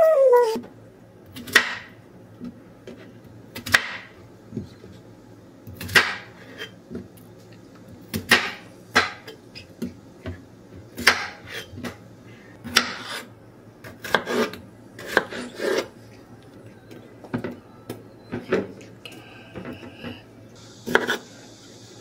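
A chef's knife cutting through a peeled cucumber into thick rounds, each stroke ending in a sharp knock on the cutting board. There are about a dozen cuts, one every second or two.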